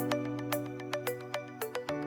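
Outro background music: a gentle instrumental with sustained chords and light plucked notes several times a second, changing chord near the end.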